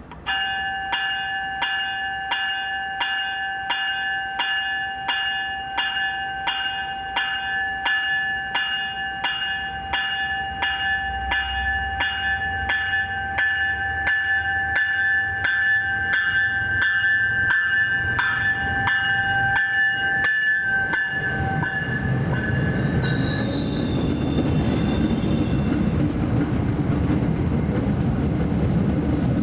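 MBTA commuter rail train's locomotive bell ringing steadily, about two strokes a second. It stops a little over two-thirds of the way through, and the rumble of the train rolling past grows louder.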